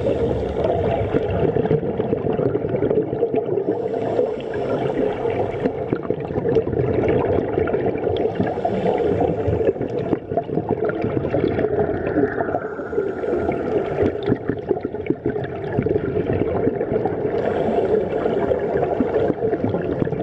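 Underwater sound of scuba divers breathing through their regulators: a steady bubbling, gurgling rumble, with a hissing swell of a breath and its exhaust bubbles about every four to five seconds.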